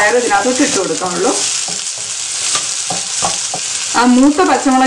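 Sliced shallots and green chillies sizzling in oil in a nonstick pan while a wooden spatula stirs them, scraping and knocking against the pan. Squeaky, pitched scraping comes at the start and again near the end.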